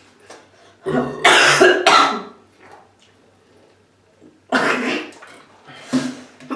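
Harsh coughing in three bursts: a long one about a second in, another at about four and a half seconds after a quiet stretch, and a short one near the end, from a throat irritated by chugging a bottle of fizzy Sprite.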